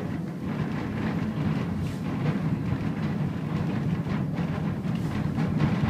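Horse-drawn tram car rolling along its rails, heard from inside the wooden car: a steady low rumble with scattered light knocks and clatters.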